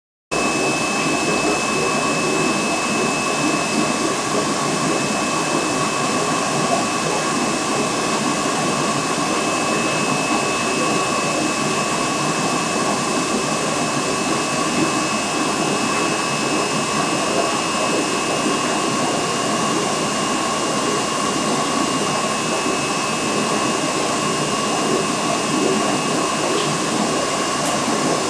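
A small motor running steadily: an even whirring hiss with a constant high whine, cutting in suddenly at the start.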